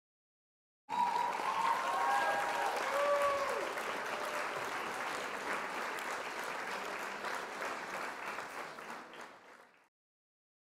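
Applause from a crowd, with a few cheering voices in the first few seconds. It starts abruptly about a second in and fades out near the end.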